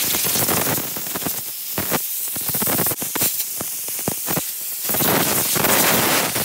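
Compressed-air blow gun blasting loose rust and dust off a rusty wrench: a loud hiss, strong at first, wavering and uneven through the middle, then strong again near the end.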